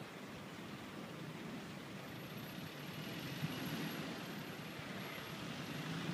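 Steady noise of road traffic, vehicles passing out of sight, growing louder in the second half.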